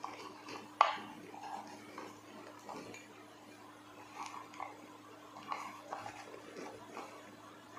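Kitchen knife cutting rolled dough rounds into quarters on a wooden chopping board: scattered light taps of the blade on the wood, with one sharper click about a second in.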